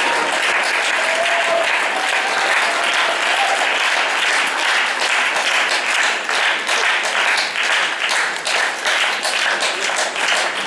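Audience applauding in a large hall, the dense applause thinning to more separate, distinct claps in the second half.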